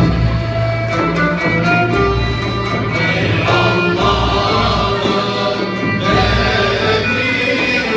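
Turkish ensemble music: a violin leads over kanun, oud and end-blown flute, with a frame drum beating steadily underneath. A male choir comes in about three seconds in.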